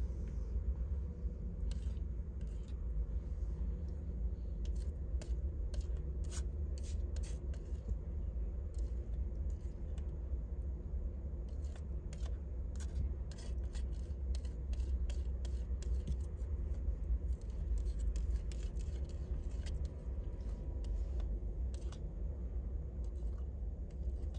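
Light, irregular clicking and scratching, many small ticks in uneven clusters, over a steady low hum.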